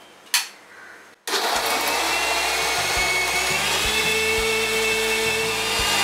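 Electric mixer grinder (Indian mixie) starting suddenly about a second in and running at full speed with a steady loud whine, blending cooked tomato, onion and soaked red chillies into chutney in its steel jar. A sharp click comes shortly before the motor starts.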